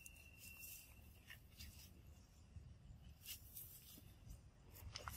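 Near silence with faint rustling and scratching: monkeys moving about on a mesh hammock, with a few soft clicks and a brief thin high tone near the start.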